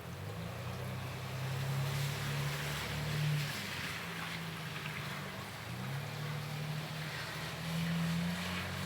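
Rain hiss with the low, steady hum of a car engine nearby, the hum stepping in pitch a couple of times while the hiss of rain and wet road swells twice, as a car passes on the wet street.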